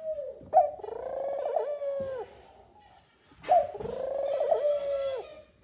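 Male ringneck dove giving two long coos, each about a second and a half, starting sharply with a short pause between them. This is the nest call by which the male summons the female to the nest.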